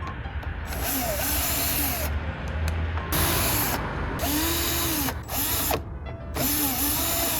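Cordless drill-driver backing out screws from a cover. The motor whirs up and winds down in about five short runs.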